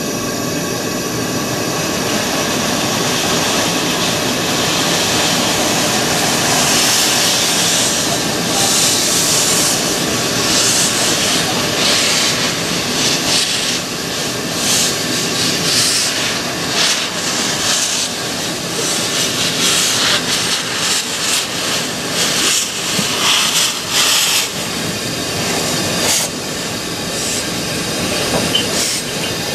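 J27 0-6-0 steam locomotive No. 65894 getting under way, with a continuous loud hiss of steam from its open cylinder drain cocks and exhaust beats coming through from about seven seconds in as it draws past.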